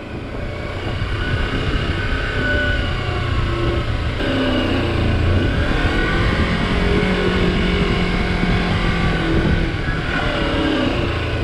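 Kawasaki Versys-X 300's parallel-twin engine running as the dual-sport motorcycle rides a dirt trail, its pitch rising and falling with the throttle, over a steady rushing noise.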